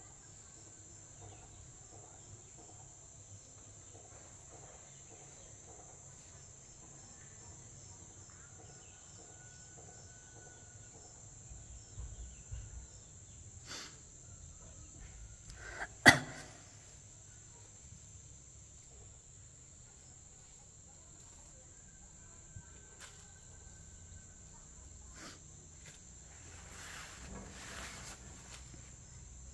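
Steady high-pitched drone of insects, with a few scattered clicks and one loud sharp knock about halfway through.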